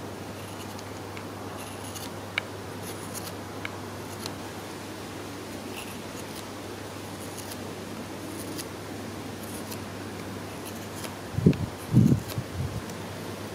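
Hook knife (spoon knife) taking fine finishing cuts inside the bowl of a wooden spoon: soft, short scraping strokes with a couple of small clicks. Near the end a few dull low thumps are louder than the carving.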